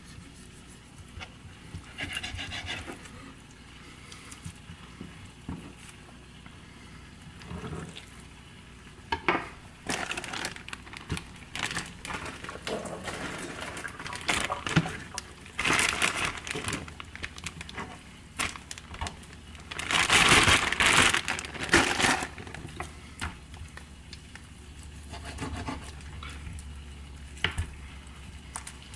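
Raw chicken leg quarters being trimmed by hand with a kitchen knife on a plastic cutting board: skin and fat pulled and torn away, with knife strokes and taps on the board, in irregular bursts. The loudest stretch of rustling comes about twenty seconds in.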